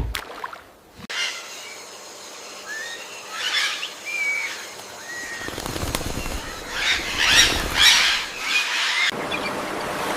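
Short chirping bird calls mixed with louder bursts of rustling noise, in spliced sound-effect clips that cut in and out abruptly.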